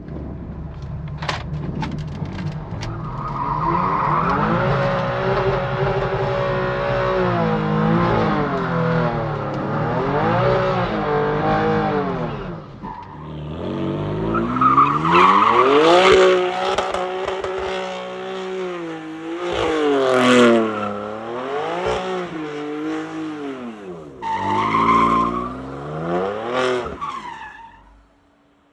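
BMW F80 M3's twin-turbo straight-six, running a straight-through M Performance exhaust with the secondary cats deleted, revving hard and rising and falling over and over as the car is slid around. Tires squeal in bursts, and the engine drops away briefly about halfway through and again near the end.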